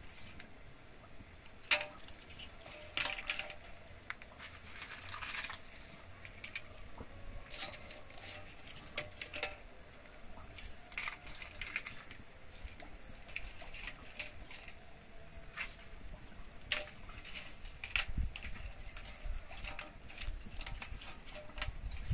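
Guajillo chiles being laid on a comal over a wood fire and toasted: scattered light crackles, taps and rustles at an irregular pace, with one sharp knock about two seconds in.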